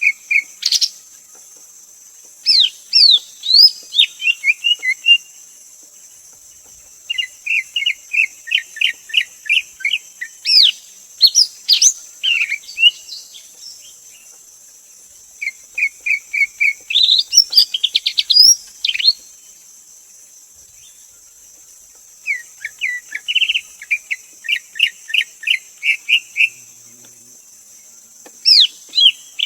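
Greater green leafbird singing: about five bouts of rapid, repeated whistled notes mixed with quick sweeping chips, a couple of seconds apart. A steady high hiss runs underneath.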